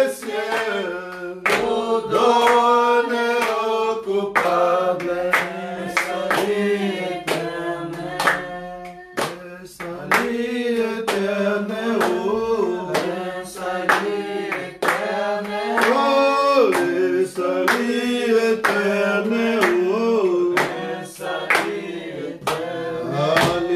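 Voices singing a hymn together, with steady hand clapping on the beat.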